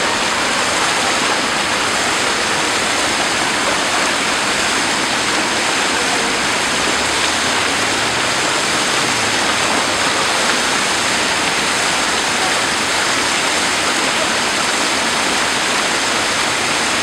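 Fountain jets spraying and splashing into a shallow pool: a steady rush of falling water.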